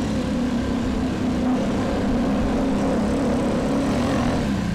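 ATV (quad bike) engine running steadily while riding, its pitch wavering slightly with the throttle, over the noise of the machine moving.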